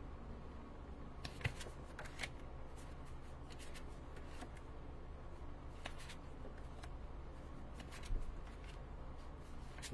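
A stack of Stampin' Up! Memories and More cardstock cards being flipped through one at a time: soft papery slides and light taps as each card is lifted and laid down, scattered irregularly, with a few sharper ones.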